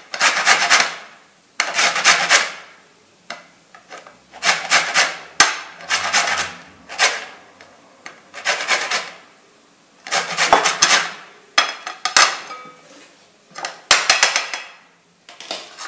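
Whole lemons rasped against a flat metal hand grater to take off the zest. The grating comes in about nine separate runs of strokes, each about a second long, with short pauses between them. Only the thin yellow outer peel is being grated lightly, stopping short of the white pith.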